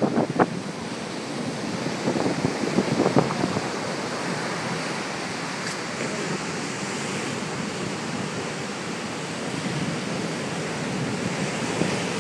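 Ocean surf breaking on the shore, a steady rush of waves and foam.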